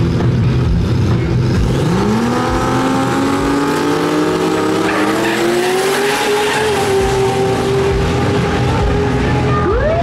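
Drag-racing car under hard acceleration, its engine note climbing steadily for several seconds and then holding at a high pitch. A short, sharp rise and fall in pitch comes near the end.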